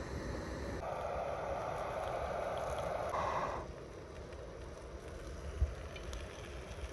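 Small backpacking canister stove's burner hissing under a frying pan, then shut off at its valve about three and a half seconds in, leaving low wind rumble on the microphone.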